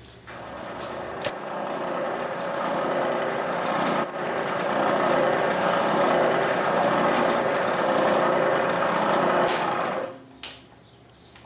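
Electric drill running and boring a 1/8-inch port into a steel 12-gauge shotgun barrel. It builds over the first few seconds, holds a steady grinding note, and stops suddenly near the end.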